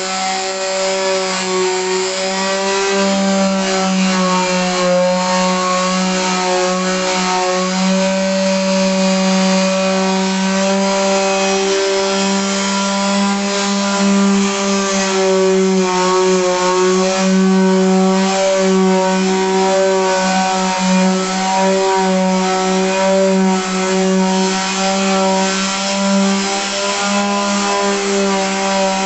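Electric sander running continuously against wood, its motor hum wavering slightly in pitch as it is pressed and moved, over the hiss of sandpaper stripping old varnish.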